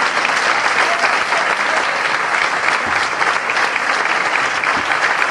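Audience and on-stage choir applauding: dense, steady clapping.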